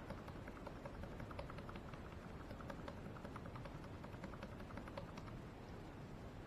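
Laptop keyboard key tapped rapidly and repeatedly, several light clicks a second, while the laptop starts up: pressed to bring up the boot menu.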